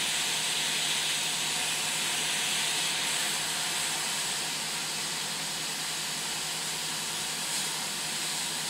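Hot-air rework station blowing a steady hiss of hot air at 60 litres a minute onto a circuit board, heating a surface-mount transistor to desolder it.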